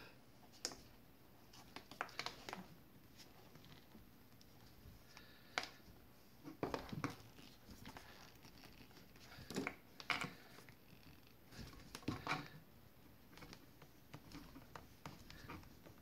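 Faint, irregular rustling, scraping and small clicks of hands forcing heat-shrink tubing along insulated wires and up over crimped splices that are a tight fit for the tubing.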